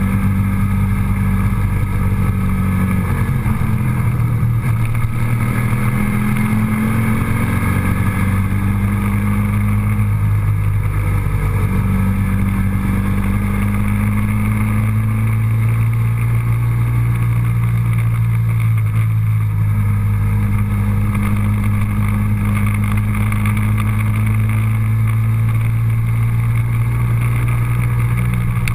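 Motor vehicle engine running at a steady drone with road noise. The engine note shifts pitch a few times, around a few seconds in, near the middle and again about two-thirds through.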